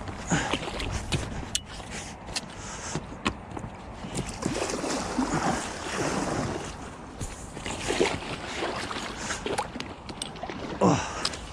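Oars dipping and pulling through the water as an Avon S250 inflatable dinghy is rowed, giving a series of uneven splashes and swishes over the water noise.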